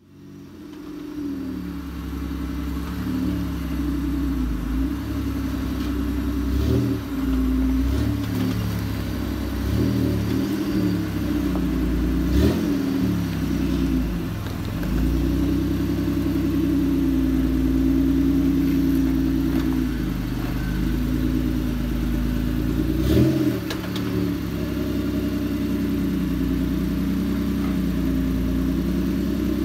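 Toyota 4Runner rock crawler's engine revving up and easing off again and again as it climbs over rocks, with a few sharp knocks along the way.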